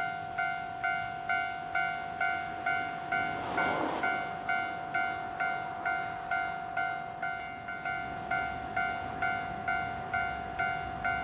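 Japanese railway level-crossing warning bell ringing: evenly repeated bell-like strikes of one pitch, about two a second, sounding for an approaching train.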